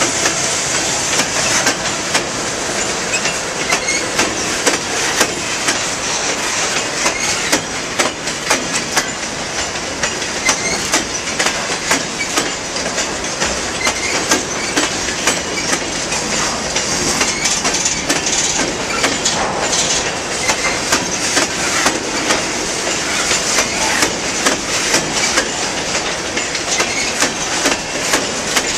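Freight train of stone hopper cars rolling past close by, steel wheels clacking over the rail joints in a steady, irregular clatter.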